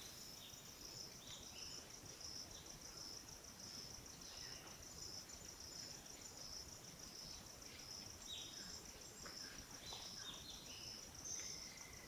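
A steady, high-pitched chorus of crickets or similar insects, with scattered short falling chirps from birds.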